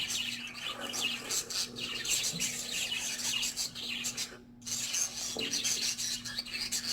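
A flock of budgerigars chattering and warbling, a dense scratchy twitter of many short calls, with a faint steady hum beneath and a brief gap about four and a half seconds in.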